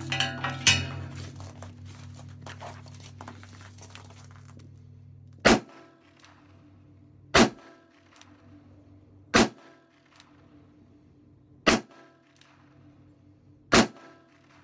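Five shots from a Nagant M1895 revolver firing 7.62×38R, evenly spaced about two seconds apart, starting about five seconds in. Background music fades out over the first few seconds, with two sharp knocks at the very start.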